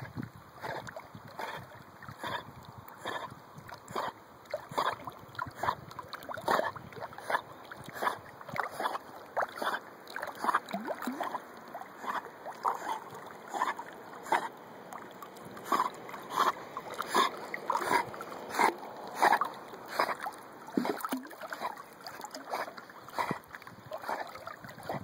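Pond water splashing and slapping in short, uneven bursts, one or two a second, around a kayak with a Vizsla dog swimming right alongside.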